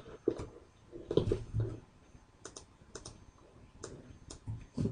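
Irregular clicking of a computer mouse and keyboard, about ten short sharp clicks with quiet gaps between them.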